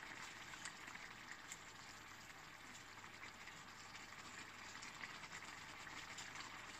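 Chicken curry simmering in a pan: a faint, steady bubbling hiss.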